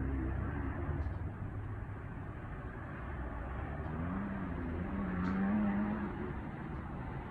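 Dirt-bike engines heard from far off across the property, running under a steady background hiss. About four seconds in, one engine revs up and holds a higher pitch for a couple of seconds, then drops away.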